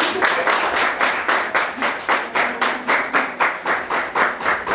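An audience clapping together in a steady rhythm, about five claps a second.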